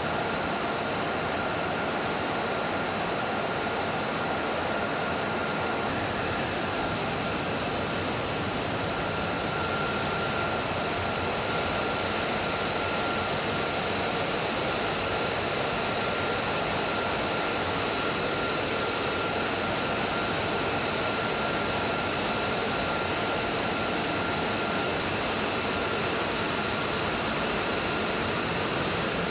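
F-35A Lightning II's F135 turbofan engine running at idle during taxi: a steady jet rush with an even, high whine.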